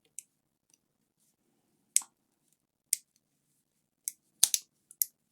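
A series of sharp, short clicks and taps a second or so apart, with a quick pair about four and a half seconds in, from handling small hard objects at a repair bench.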